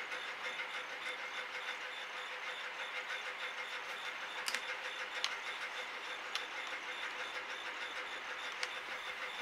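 A steady hum and hiss with a faint, even pulsing, with a few short sharp clicks from the middle onward.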